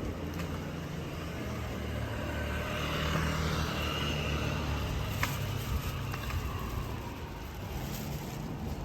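A road vehicle drives past: engine hum and tyre noise build to a peak about three to four seconds in, then fade away. A single sharp click comes about five seconds in.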